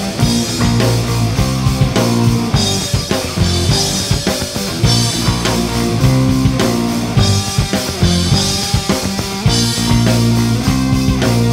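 Live rock band playing an instrumental passage: drum kit keeping a steady beat under electric bass and electric guitar.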